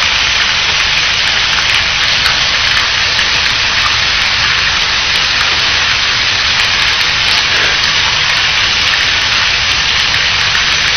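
A waterfall rushing: a loud, steady hiss of falling water.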